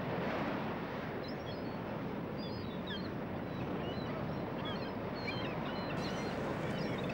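Seaside outdoor ambience: a steady wash of noise with many short, high bird calls scattered through it.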